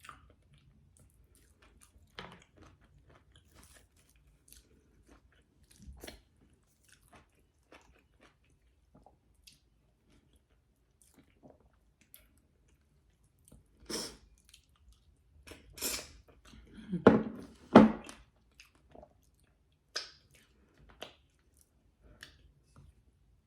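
Close-miked chewing and mouth sounds of someone eating egusi soup with fufu: scattered soft wet clicks, then a run of louder crunching, biting sounds about 14 to 18 seconds in.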